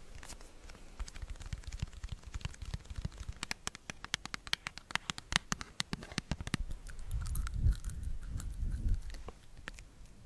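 Close-miked ASMR trigger sounds: a dense run of small, crisp clicks and ticks, followed about seven seconds in by a few seconds of low rumbling against the microphone, with more clicks.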